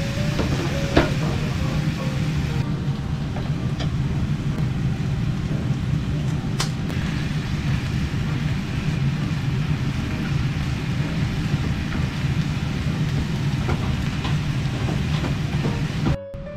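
Food sizzling and bubbling in a small frying pan on a gas stove, with a little water added. There is a steady low hum underneath and a few sharp ticks as chopsticks strike the pan.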